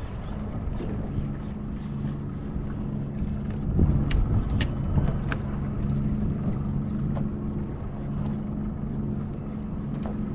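A boat motor running steadily at low speed, a constant low hum, with wind noise on the microphone and a few sharp clicks about four to five seconds in.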